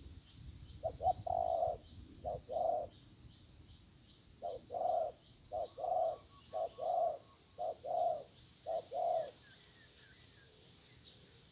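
Spotted dove cooing: a series of about seven low, hoarse coo phrases, each a short note followed by a longer one, stopping about three seconds before the end. Faint high chirping from small birds runs behind it.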